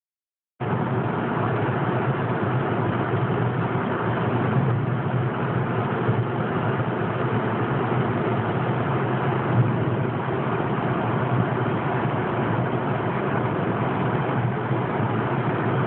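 Steady drone of a car driving at highway speed, heard from inside the cabin, with engine and road noise strongest low down. It starts about half a second in.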